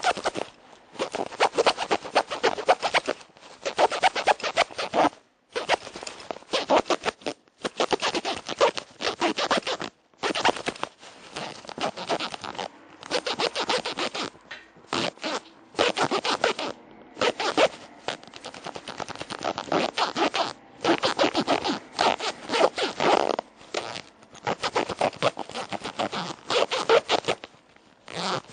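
A zipper being pulled back and forth repeatedly, a long run of rasping strokes of about half a second to a second and a half each, with short pauses between them.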